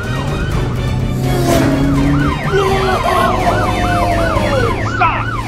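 Siren sounding in a fast yelp, about four rising-and-falling wails a second, over a steady low hum.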